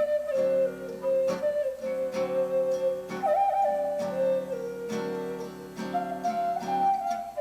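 Native American flute playing a slow melody of long held notes, with a short higher flourish midway, over guitar chords struck about once a second.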